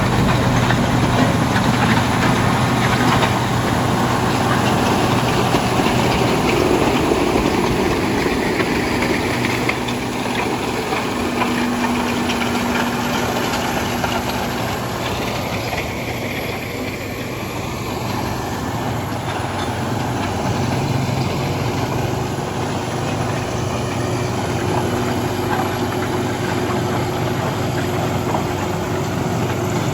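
Diesel engines of heavy road-construction equipment running steadily, with a low engine hum under a constant mechanical din.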